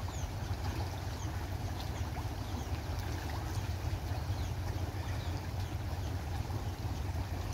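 Steady wind rumble on the microphone over a pond, with many faint small splashes and plops of catfish taking feed at the water surface.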